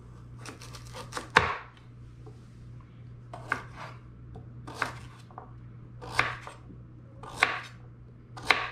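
Kitchen knife cutting sweet potatoes on a wooden cutting board: a slow series of single cuts, each ending in a knock on the board, about one every second and a quarter, the loudest one near the start. A low steady hum runs underneath.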